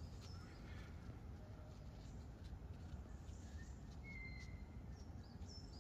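Faint wild birdsong: a few short chirps and whistles, more of them in the second half, over a low steady outdoor rumble.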